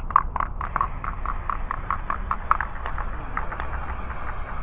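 Aerosol can of spray primer being shaken, its mixing ball rattling in quick even clacks, about four or five a second, growing fainter near the end.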